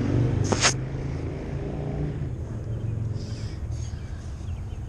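A car engine running close by, a low steady rumble that eases off about two seconds in. A sharp click comes just over half a second in.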